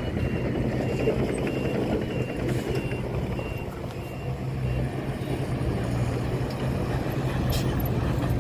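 Heavy diesel construction machinery running steadily, with a high back-up alarm beeping about twice a second that stops about three and a half seconds in.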